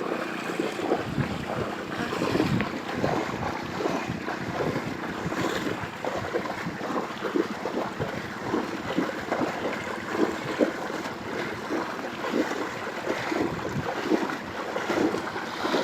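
Floodwater sloshing and splashing in an irregular patter, with wind buffeting the microphone.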